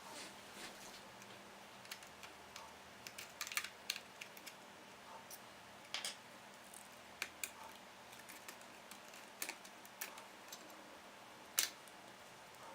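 Sparse, irregular light clicks and taps from small laptop parts and tools being handled during a PowerBook G4 teardown, over a faint steady hum.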